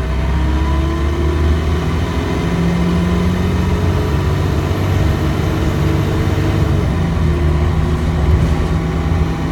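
Dennis Trident 2 bus's diesel engine heard from inside the passenger saloon, accelerating with its pitch rising over the first few seconds, then running steadily under way with another slight rise near the end.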